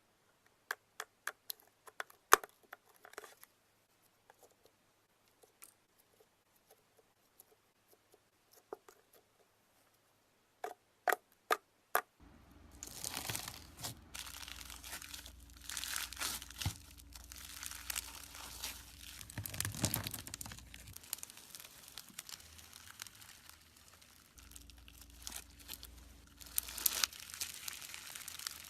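Slime being handled: scattered sharp clicks for about the first twelve seconds, then continuous crinkling, crackling noise, with a low hum underneath.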